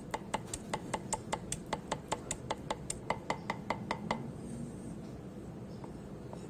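Cleaver chopping lemongrass finely on a wooden chopping block: quick, even knocks of the blade on the wood, about five a second, that stop about four seconds in.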